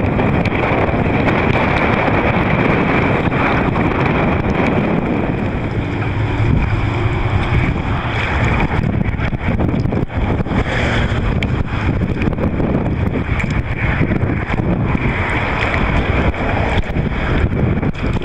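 Strong wind buffeting the microphone, steady and loud, over choppy water.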